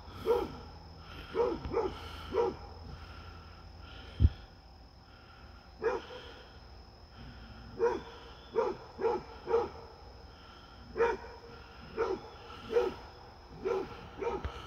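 Basset hound barking at a deer: about fifteen short barks in uneven groups, with a gap of a few seconds after the first four. A single sharp knock about four seconds in.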